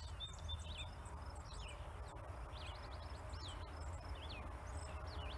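Birds singing and chirping: many short whistled notes that swoop up and down, several a second, over a steady low rumble.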